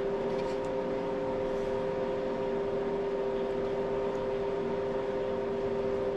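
Steady mechanical hum with a few even, unchanging tones, from a fan or electric motor running in the background.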